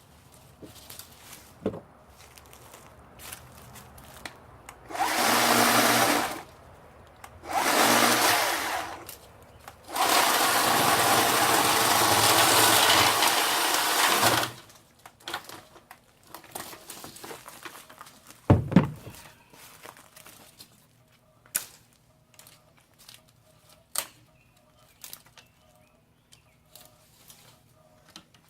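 WORX 40-volt battery chainsaw's electric motor and chain running in three bursts, the last about four seconds long, as it cuts through thick azalea branches. A single sharp thump follows a few seconds later, amid scattered light clicks and snaps of brush.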